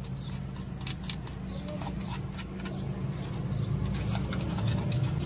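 Light clicks and taps of a metal ice cream dasher against its can as thick, freshly churned ice cream is wiped off it by hand. A steady low hum and a high insect-like chirr run underneath.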